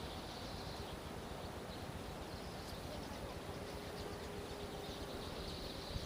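Outdoor ambience among fruit trees: a steady low rumble, with faint high chirping that comes and goes and a faint steady hum underneath.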